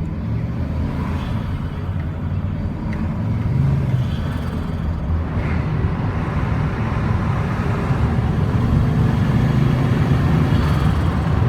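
Turbocharged, cammed Chevrolet Silverado 1500 engine running steadily at light part throttle while cruising, with road noise, heard from inside the cab. It gets a little louder in the second half.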